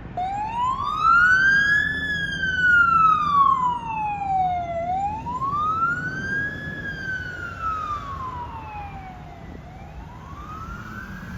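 Fire apparatus siren on wail, its pitch sweeping slowly up and down about every four to five seconds, growing fainter toward the end.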